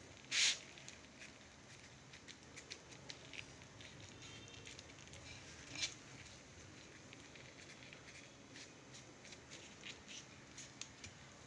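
Faint rustling and small crackles of a chapati being rolled tightly by hand around its vegetable filling on an aluminium plate, with a short, louder swish about half a second in.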